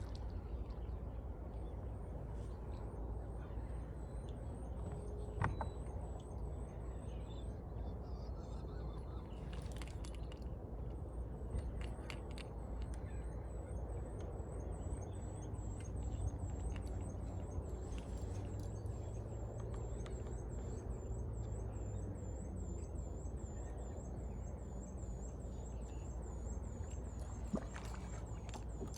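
Outdoor riverside ambience: a steady low rumble with a faint, high chirp repeating evenly two or three times a second, and a few light clicks.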